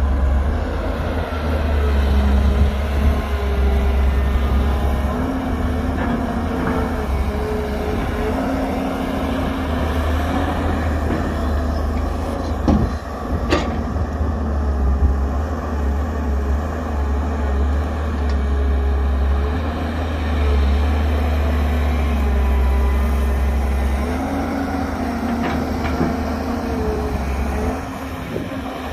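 An excavator's diesel engine running steadily under load, its pitched note rising and falling several times as the machine works. Two sharp knocks come about halfway through.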